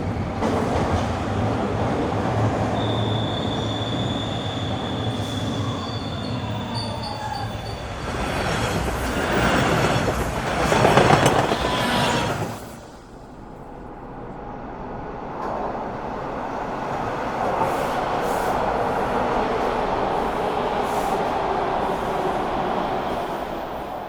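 Toronto subway trains on the rails. First a train brakes to a stop with a steady high wheel squeal. A second train then passes quickly, swelling loud and cutting off suddenly about 13 seconds in, and a third approaches along the platform and slows to a stop.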